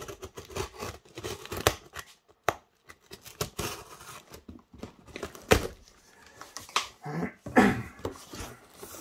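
Box cutter slicing through packing tape on a cardboard box: irregular scrapes, taps and tearing of tape and cardboard, with a short rising squeal near the end.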